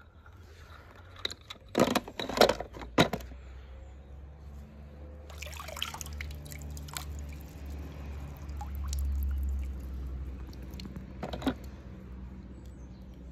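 Water dripping and trickling from a wet pool skimmer net while toy cars are picked out of it, with several sharp clacks of the toys knocking together about two to three seconds in and one more near the end. A low rumble runs underneath, strongest in the middle.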